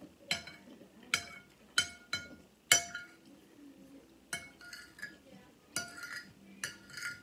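Metal spoon clinking against a ceramic dinner plate while scooping food: about ten sharp, ringing taps, unevenly spaced, with quieter stretches between.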